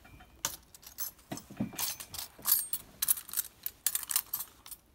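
A run of light clicks and metallic clinks as a metal crochet hook and other crochet tools are handled on a hard tabletop, busiest around the middle.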